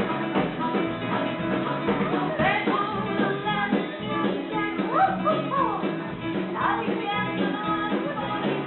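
Live band playing a song, with voices singing over acoustic guitar and keyboard.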